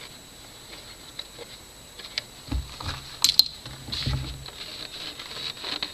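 Hands working a rubber air-intake hose and its clamp loose in a Toyota Prius engine bay: scattered light clicks and rubbing, with two sharp clicks a little past three seconds in and a couple of dull bumps.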